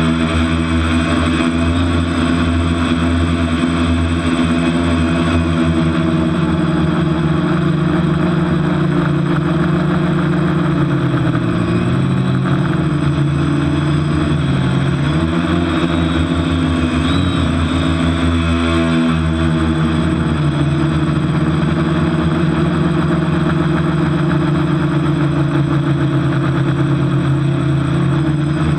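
Electric motors and propellers of a TBS Discovery quadcopter, heard from its onboard camera as a steady multi-tone buzz. The pitch falls and rises a few times with throttle changes around the middle, then holds steady. It is flying on a damaged propeller.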